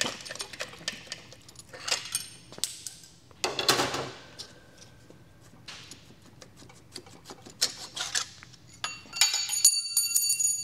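Rust-seized cast-iron cylinder head of a BMC A-Series 1275 engine being worked back and forth on its studs: scattered metallic clicks and knocks with a couple of short scraping grinds. Near the end, as the head comes free and lifts off the block, there is a burst of metal clinking and ringing.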